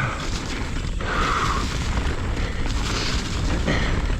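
Mountain bike descending fast on a dirt trail: wind buffeting the microphone as a steady low rumble, with the tyres rolling over dirt and the bike rattling.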